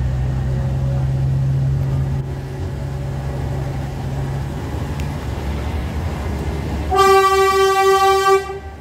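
Narrow-gauge forest railway train running with a steady low engine hum, then its horn sounds one loud single-note toot about seven seconds in, lasting about a second and a half before it cuts off.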